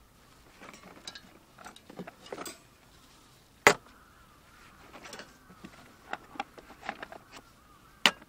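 Scattered light clicks and knocks, with two sharp knocks, one about three and a half seconds in and one near the end.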